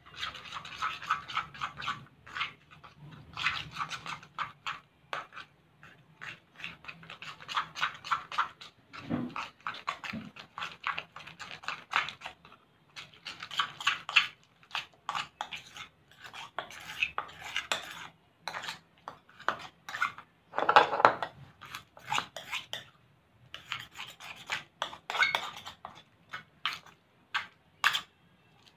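Green PVA-glue slime squelching and crackling as fingers knead and stir it in a bowl, with the borax activator being worked in so it sets up. Irregular sticky clicks and wet squishes come in bursts with short pauses.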